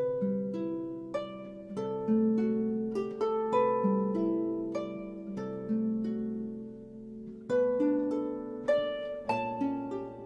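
Background music: a gentle melody of plucked, harp-like notes, a few a second, each ringing and fading.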